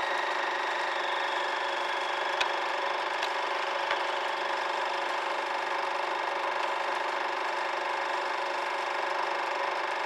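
A steady droning hum with several held tones, and a couple of faint clicks over it.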